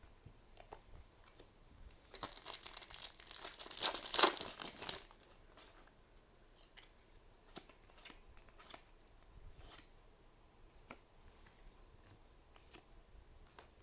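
A booster pack's foil wrapper crinkling and tearing for a few seconds, followed by scattered light clicks and rustles of trading cards being handled.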